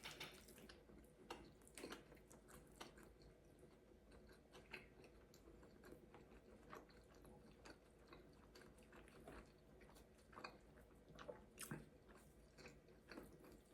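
Faint chewing and biting sounds of a person eating: scattered small wet clicks and crunches from the mouth.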